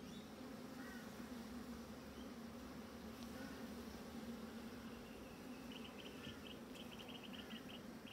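A honeybee colony humming steadily: the low, even buzz of many bees around an opened hive.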